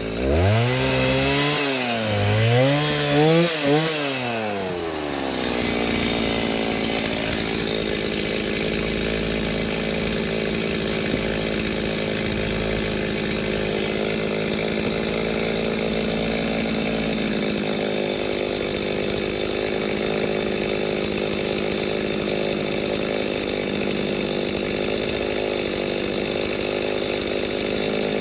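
Gasoline chainsaw revving up and down several times, then settling into a steady lower pitch under load as it cuts through a seasoned oak log for firewood.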